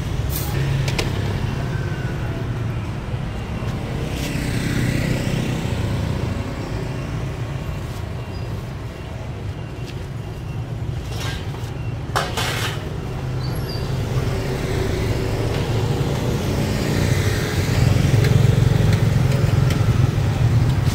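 Motorbike traffic passing on the street, a steady engine hum with vehicles sweeping past about four seconds in and again, louder and closer, near the end. A few short sharp clicks and rustles of plastic bags and produce being handled.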